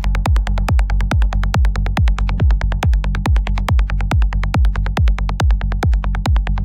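Electronic dance music with a steady four-on-the-floor kick drum, about two beats a second, and crisp hi-hats between the beats.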